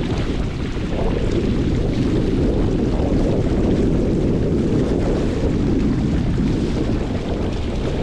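Steady wind buffeting the microphone, with water washing along the hull of a Catalina Capri 22 sailboat under way in strong wind.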